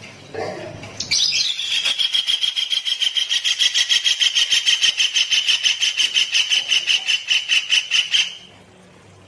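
A songbird's long, even, rapid trill of about six pulses a second, held on one pitch for about seven seconds before stopping abruptly. It is preceded by a short, lower call about half a second in.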